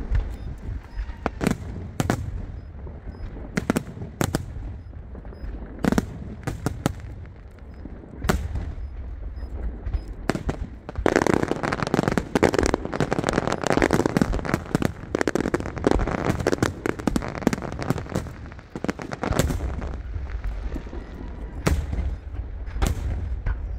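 A fireworks display: sharp bangs from bursting shells come irregularly, every second or so, over a low rumble. About halfway through, a dense run of crackling and popping lasts for several seconds.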